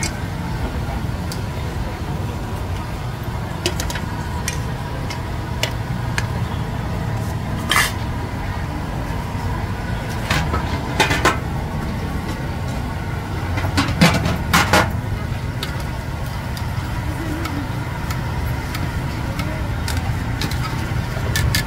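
Steady low rumble of street traffic, with a few short sharp clinks and knocks of metal pots and cooking utensils scattered through. The loudest is a quick cluster of knocks about two-thirds of the way through.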